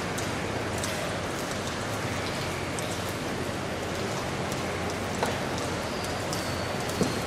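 Steady rushing hiss of outdoor ambient noise, with scattered faint clicks and two sharper knocks, one about five seconds in and one near the end.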